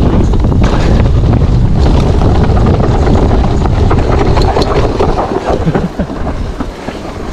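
Wind buffeting the action camera's microphone while an e-mountain bike rolls fast down a dirt trail, with tyre noise and many short rattles and knocks from the bike over bumps. The rush eases off about five and a half seconds in.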